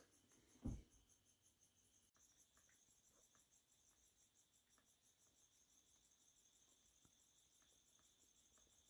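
A cat jumping down from a stool lands with a single thump less than a second in. Afterwards there is only a faint, steady, high pulsing chirr and a few faint ticks.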